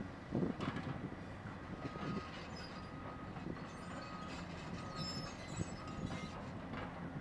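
Heavy construction machinery running: the diesel engine of a Cat 320C excavator working as its bucket digs into dirt, with a few knocks. In the middle a faint backup alarm beeps five times, about once every 0.8 s.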